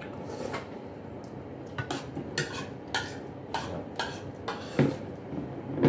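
Metal spoons and forks clinking against a bowl and plate while eating: about ten sharp, irregular clinks, the loudest near the end.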